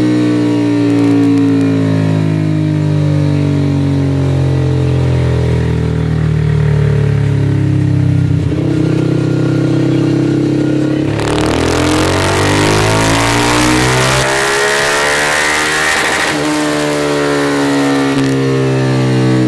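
Kawasaki Z125 Pro's 125cc single-cylinder engine, fitted with a Kitaco super stock kit, running on a dynamometer. It runs steadily for several seconds, then about eleven seconds in goes to full throttle and climbs in pitch for about five seconds through a wide-open pull, then drops back to a steady lower speed. It is on the stock computer tune, which the owner says runs way too lean, and is not fully warmed up.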